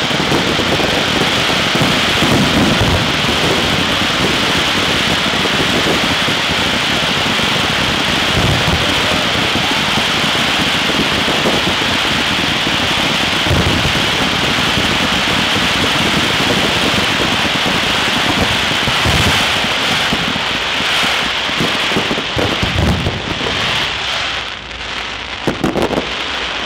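Dense barrage of aerial fireworks: a continuous crackling hiss of many bursting shells, with deep booms every few seconds. Near the end it thins out into separate bangs.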